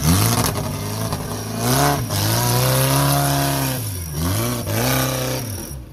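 Off-road 4x4's engine revving in repeated surges, held high for about two seconds in the middle, dropping back between surges and falling away near the end.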